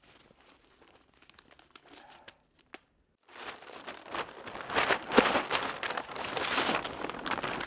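A red, foil-backed tarp being unfolded and shaken out, its sheet crinkling loudly. The crinkling starts about three seconds in, after a quiet stretch with a few faint clicks.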